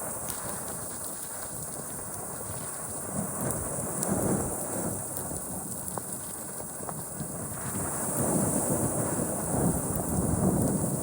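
Rain hissing steadily with ocean waves washing in beneath it, the low wash swelling about four seconds in and again over the last few seconds. A few sharp drops tick now and then.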